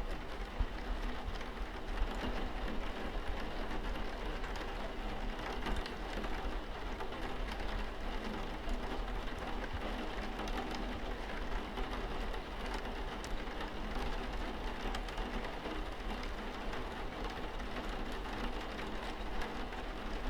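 Steady rain falling, an even hiss with scattered sharper drop ticks throughout.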